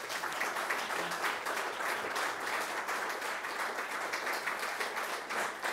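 Audience applauding: many hands clapping in a steady, dense patter.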